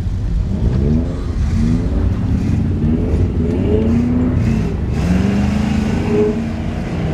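4x4 pickup truck engine revving hard again and again, its pitch rising and falling every second or so, as the truck works through deep snow toward a hill climb.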